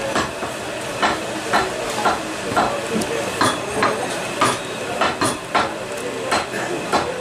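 Butcher's cleaver chopping meat on a wooden chopping block: sharp, irregular knocks about twice a second over a steady background hiss.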